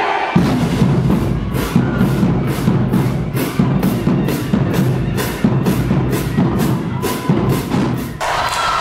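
Music with a heavy bass and a steady, driving drum beat of about two to three hits a second. It cuts off suddenly near the end.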